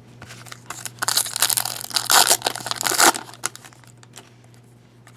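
A trading-card pack wrapper being torn open and crinkled, a dense crackling from about a second in to three seconds in, with small clicks of cards being handled around it.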